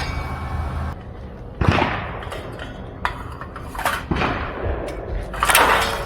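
Promatic sporting clays trap machine running on its newly connected battery: a steady low motor hum with several sharp mechanical bangs and clunks, the loudest about one and a half and five and a half seconds in.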